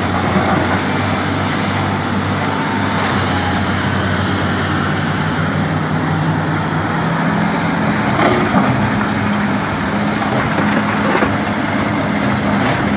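SANY SY365H excavator's diesel engine running steadily, its engine note stepping up a little about halfway through, with a few light knocks.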